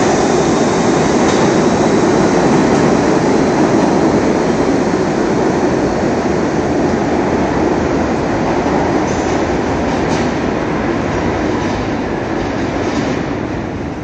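New York City subway train pulling away along the platform track, its running and wheel-on-rail noise slowly fading as it moves off. A few faint rail clicks come in the second half.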